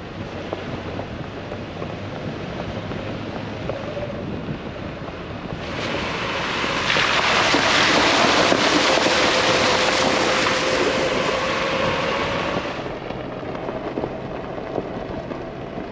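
A vehicle driving on a dirt road: steady tyre and wind noise, rising to a loud rushing hiss from about six to thirteen seconds in, then easing back.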